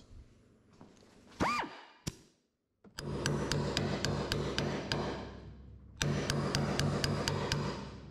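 A handheld power tool working on car-body sheet steel. It gives a brief rising-and-falling whine about a second and a half in, then runs twice for a few seconds each time, a steady hum with sharp ticks about three times a second.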